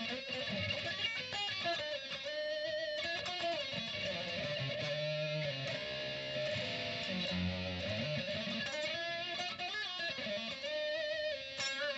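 Electric guitar played through an analog flanger pedal in its freeze mode, the sweep held still: a fixed, filtered tone with accentuated highs, almost like a cocked wah.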